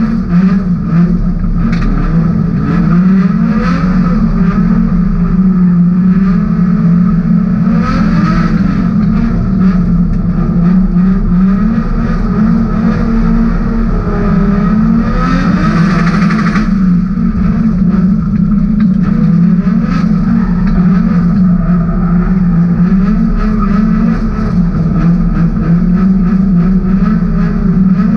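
BMW E30 race car's M50B28 straight-six engine, heard from inside the cabin, revving up and down over and over as the car is driven hard. A brief harsher burst of noise comes about fifteen seconds in.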